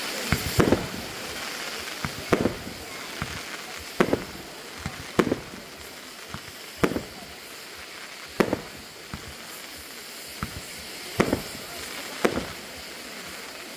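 Aerial fireworks display: shells bursting in sharp bangs about every one to two seconds, over a steady rushing hiss.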